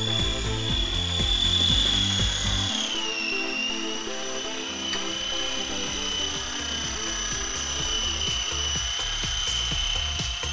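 Small electric RC helicopter's motor and rotor whining at a high steady pitch. The pitch dips slightly about three seconds in, then holds, with background music underneath.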